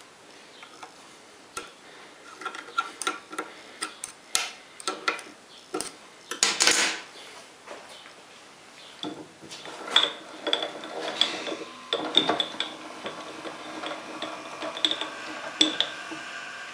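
Irregular metallic clicks and taps from an open-end wrench on the saddle's adjusting screws of a homemade lathe, which set how tightly the saddle runs on its rails. In the second half, metal clinks with a short ringing as the steel saddle is shifted along the bed.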